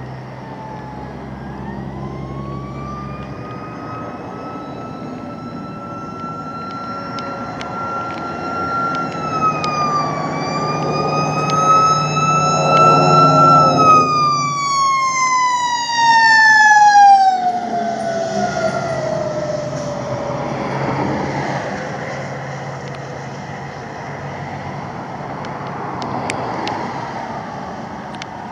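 Fire truck siren wailing in one long slow sweep: its pitch climbs for several seconds, dips and climbs again, then winds down over several seconds. A steady low truck-engine rumble runs under it, and the whole is loudest just past the middle.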